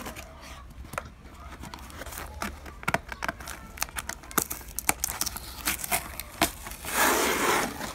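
A cardboard parcel being opened by hand: scattered crackles and rustles of cardboard flaps and packing tape, then a louder tearing sound lasting under a second near the end as the clear tape is peeled off.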